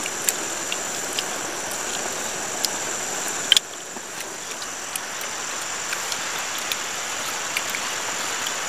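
Steady drone of insects with a constant high-pitched buzz over an even hiss, with scattered light clicks and taps and a sharper click about three and a half seconds in.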